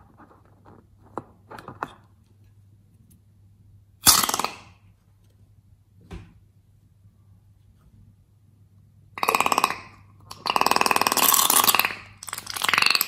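A liquid-filled rubber balloon squeezed so that the beige liquid and air sputter out of its open neck: a short burst about four seconds in, then three long rapid buzzing spurts near the end. Light rubber squeaks and taps from handling the balloon come before.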